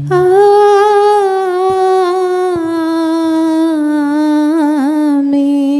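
A solo unaccompanied voice holding one long sung note of a liturgical chant, drifting slightly lower in pitch and wavering briefly near the end.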